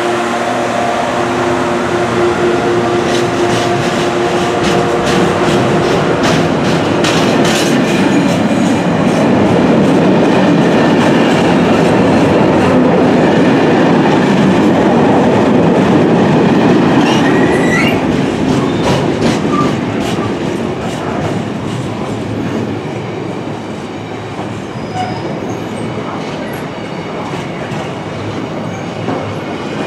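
Freightliner Class 66 diesel locomotive running past close by, its engine note strong for the first several seconds. That gives way to the heavy rumble and clatter of its container flat wagons on the track, with a run of sharp wheel clacks and a brief rising wheel squeal about halfway through. The rumble eases somewhat over the last third as the wagons keep rolling past.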